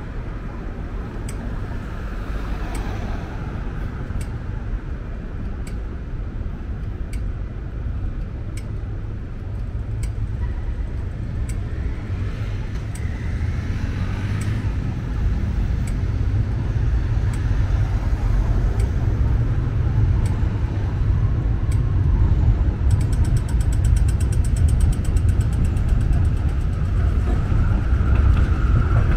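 City street traffic: road vehicles running and passing with a steady low rumble that grows louder toward the end. Faint regular ticks come about once a second and turn into fast ticking near the end.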